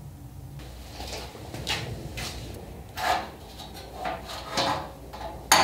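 A ribbed sheet-metal floor panel being handled and set down on wooden sawhorses: a series of short metal scrapes and knocks, the loudest near the end.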